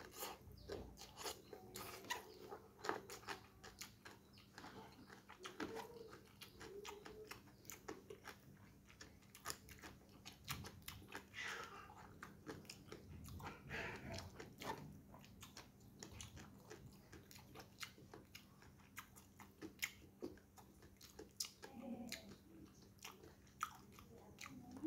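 Close-miked chewing of rice and spinach eaten by hand, with crunching of crispy fried salted fish (gereh eyek) and many small wet mouth clicks.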